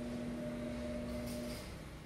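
A steady electrical hum holding two fixed tones, which cuts off about one and a half seconds in.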